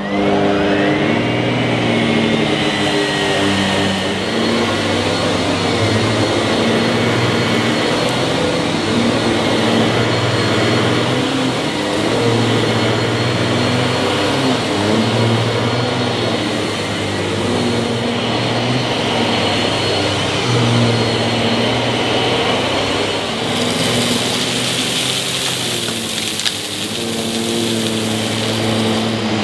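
Miele S7 upright vacuum cleaner switching on, its motor whine rising to speed over the first couple of seconds, then running steadily, the hum wavering as it is pushed back and forth over carpet. From about three-quarters of the way through, a hiss joins as it sucks up loose debris.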